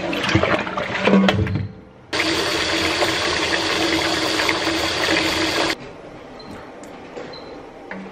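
Kitchen faucet running into a stainless-steel sink, splashing over an air fryer's crisper plate as it is rinsed; the water starts about two seconds in and shuts off abruptly near six seconds. Before it comes the clatter and knock of the air fryer basket being handled in the sink.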